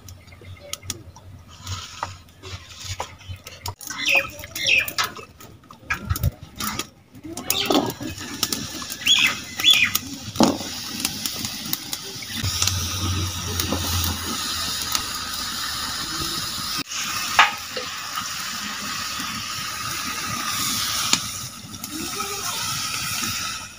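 Clinks of metal utensils, then a steady sizzle for about ten seconds as chopped papaya and potato pieces are tipped into a hot metal kadai over a wood fire. Water is poured into the pan near the end.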